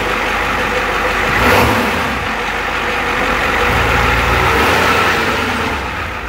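The 1994 Ford F250's 7.3-litre International Harvester IDI turbo diesel V8 idling steadily, just after being started.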